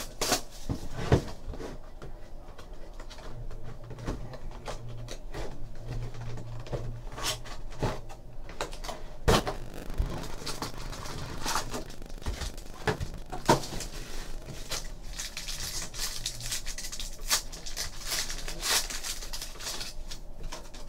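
Plastic shrink wrap crinkling and tearing as it is stripped from a sealed hockey card hobby box, then the cardboard box and card packs handled with scattered light knocks and clicks. Near the end a foil card pack is torn open.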